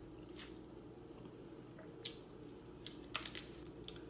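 Snow crab leg shells clicking and cracking as they are snapped and picked apart by hand. The cracks come singly, with a cluster of louder ones a little after three seconds in, over a low steady hum.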